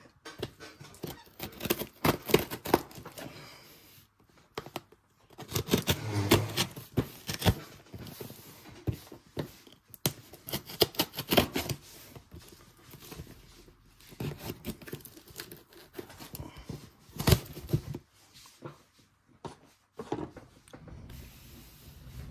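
A cardboard postal box being torn open by hand, with tape and cardboard tearing and scraping in several separate bursts.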